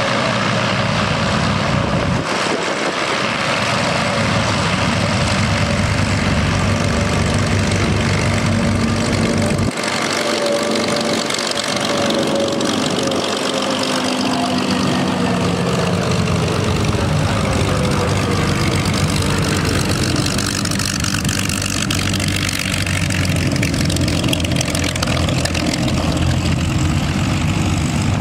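Curtiss P-40 Warhawk's liquid-cooled V-12 piston engine running at low taxiing power as the fighter rolls past and away, its pitch sliding down as it goes by partway through. Other warbird engines are running behind it.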